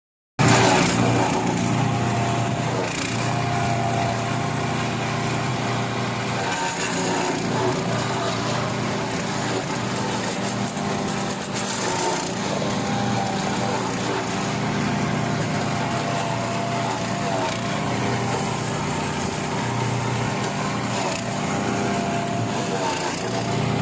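Wood chipper running steadily at a constant speed, with a sustained engine-like hum that wavers slightly in pitch.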